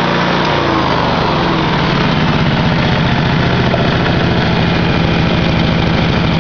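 Honda V-twin engine running a generator head; its speed drops over about the first second and a half as the throttle is pulled back, then it settles into a steady idle.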